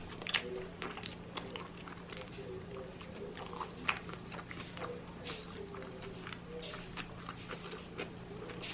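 Close-up chewing with irregular wet mouth clicks and smacks, someone eating food right at the microphone.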